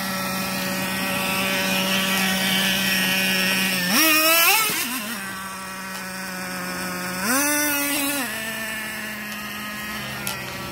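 Small nitro engine of an RC monster truck idling steadily, with two bursts of throttle about four and seven seconds in, where the pitch rises and then falls back.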